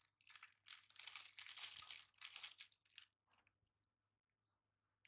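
Plastic snack packet crinkling and rustling as it is handled and shaken out for about three seconds, then stopping.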